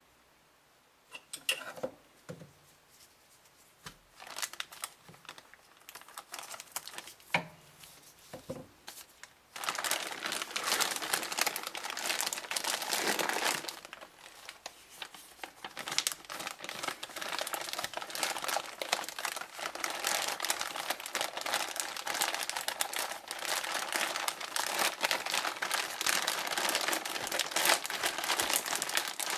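Clear plastic bags crinkling as they are handled: a few short rustles at first, then continuous dense crinkling from about ten seconds in.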